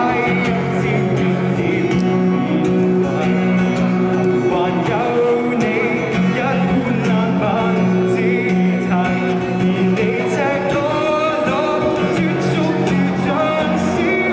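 A young man singing a song into a microphone while accompanying himself on an acoustic-electric guitar.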